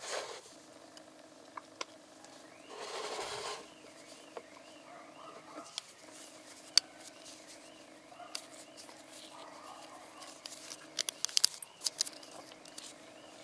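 Handling noise of gloved fingers on a small plastic oil-bottle cap and its torn tamper ring: scattered small clicks and rustles, a longer rustle about three seconds in, and a quick run of clicks near the end, over a faint steady hum.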